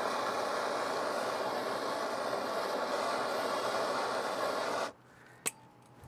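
Handheld gas torch lit with a click, then burning with a steady hiss for about five seconds before it is shut off abruptly, softening the end of clear plastic tubing with heat. A single sharp click follows about half a second later.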